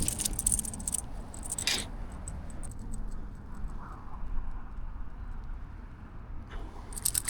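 Wind buffeting the microphone as a steady low rumble, with bursts of fast clicking and rattling in the first couple of seconds and again near the end.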